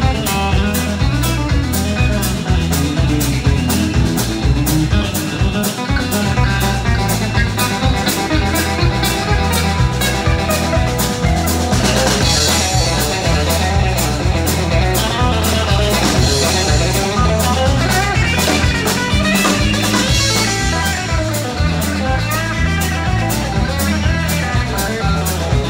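Live band playing with no singing: electric guitars over a drum kit keeping a steady beat.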